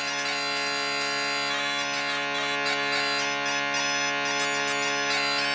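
Background music: a steady held drone with a reedy, bagpipe-like melody played over it.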